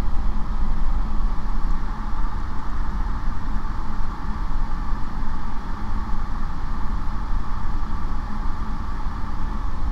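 Steady drone of a light aircraft's piston engine and propeller in level cruise flight, with a deep hum under an even rush of noise.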